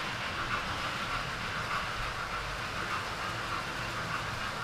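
Model trains running steadily around a model railway layout.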